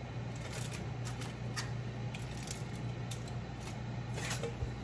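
Silicone-tipped kitchen tongs handling wet, marinated chicken pieces and setting them on a foil-lined tray: scattered light clicks and soft squishes over a steady low hum.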